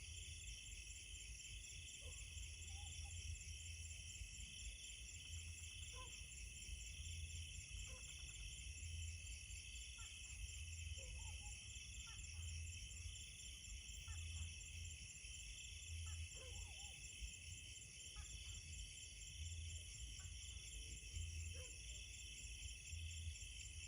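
A night-time insect chorus, crickets and other insects trilling steadily in several high-pitched layers. Faint short calls come lower down about every one to two seconds.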